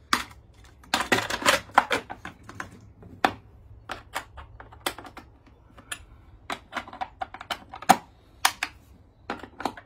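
Plastic top cover of an ECHO CS-7310SX chainsaw being set back on and its fasteners turned with a T-shaped combination wrench: a run of sharp clicks and knocks of plastic and metal, densest about a second in, then spaced out.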